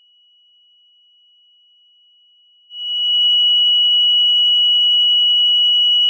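Pollution containment valve control panel's electronic buzzer sounding a steady high-pitched tone as a close cycle is triggered. The tone is faint at first, then turns loud a little under halfway in and holds. A faint low rumble runs beneath it.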